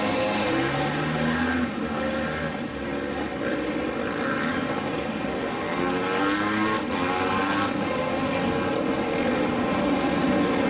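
Several supermoto race motorcycles racing together, their engines revving up and down in overlapping rising and falling pitches as the riders accelerate and shift.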